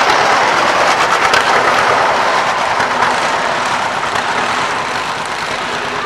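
Antique John Deere tractor running as it pulls a loaded wagon past and away, with the wagon rattling over the road. The sound fades gradually as they move off.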